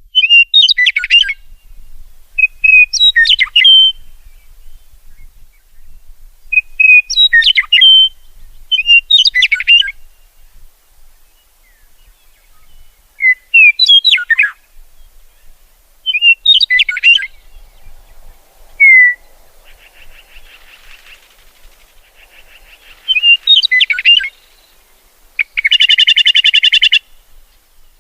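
A songbird singing short, sweeping phrases repeated every second or two, with a rapid trill near the end.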